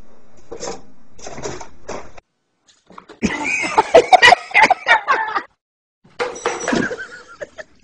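A cat meowing in a quick string of short, rising and falling calls, the loudest sound here, after a couple of seconds of faint scuffing. The sound cuts off abruptly between separate clips, and another short stretch with calls follows near the end.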